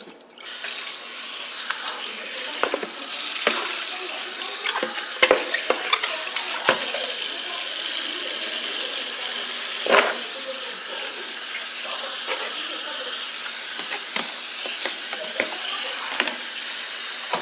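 Kitchen tap turned on about half a second in and running steadily into a plastic basin in a stainless steel sink. Plastic basin and colander knock against the sink several times, loudest about ten seconds in.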